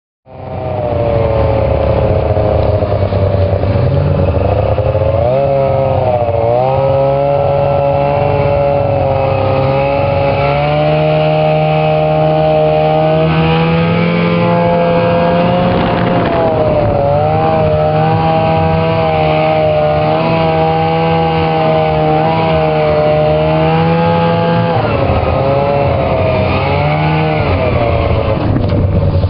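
Snowmobile engine running at speed, starting abruptly. Its pitch dips and climbs again several times as the throttle is eased and reopened.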